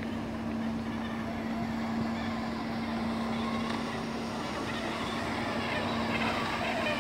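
Nilfisk ride-on floor scrubber-dryer running as it scrubs a wet concrete floor: a steady motor hum with one constant tone, getting a little louder as the machine comes close near the end.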